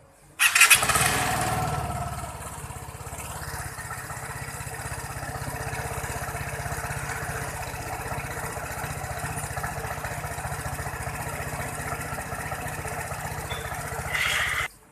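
Automatic Vespa scooter's single-cylinder engine starting, running fast for a moment, then settling into a steady idle. Near the end it rises briefly before cutting off suddenly.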